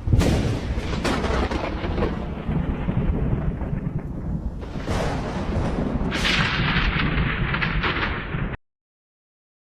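Thunder sound effect: a sharp crack breaks into a long, deep rumble, with further cracks rolling in. A harsher crackling hiss joins about six seconds in, then the sound cuts off abruptly.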